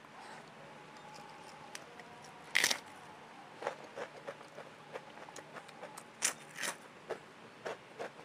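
A person eating crunchy food up close to the microphone: one loud crunching bite about two and a half seconds in, then a string of short crunching, smacking chews.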